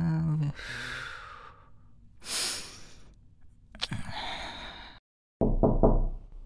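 A man sighing and breathing out heavily several times, a sign of nervous tension. About five seconds in the sound cuts off abruptly, and a short pulsed voice sound follows near the end.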